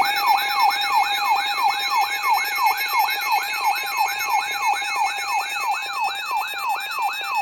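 Electronic siren sweeping quickly up and down, about three cycles a second, over a steady underlying tone.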